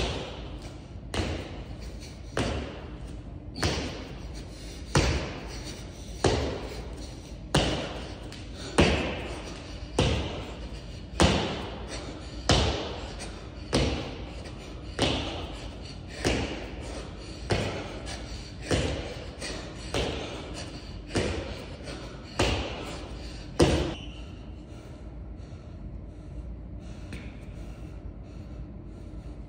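Repeated thuds of both sneakered feet landing together on a gym floor during double-leg jumps, about one landing every 1.2 seconds, each ringing briefly in the large room. Some twenty landings, stopping about 24 seconds in.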